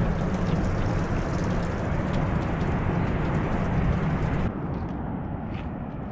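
Steady rushing outdoor noise, heaviest in the low end, of the kind made by wind on the microphone or distant falling water. About four and a half seconds in it cuts abruptly to a quieter, duller hiss with a few faint ticks.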